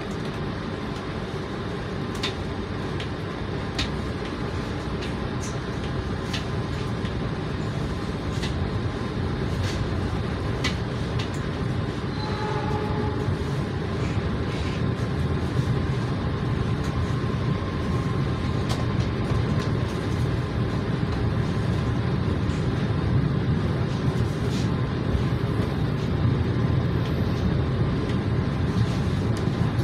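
Interior of a passenger train coach rolling slowly along a station platform: a steady low rumble from the wheels and running gear that builds gradually, with scattered light clicks and knocks.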